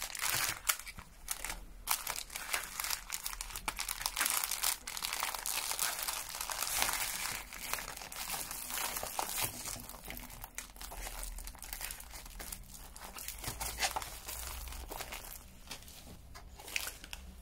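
Clear plastic packaging crinkling and rustling as hands handle and unwrap it, with irregular rustles and small clicks throughout.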